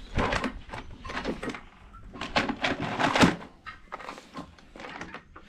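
Irregular clicks and knocks of a portable jump starter being handled, its fold-out stands being moved, with the loudest knock a little after three seconds in.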